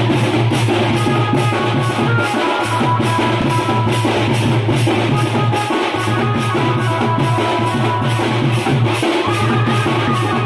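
Khemta baja band music: a fast, steady drum beat with deep bass under a melody of held notes. The deep bass drops out for a moment about every three seconds.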